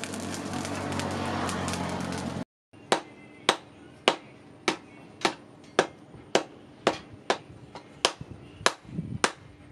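A coal forge fire gives a steady rushing noise for the first couple of seconds. After a brief break, a hand hammer strikes a red-hot steel knife blade on a small anvil about a dozen times, a sharp ringing blow roughly every 0.6 seconds, as the blade is forged.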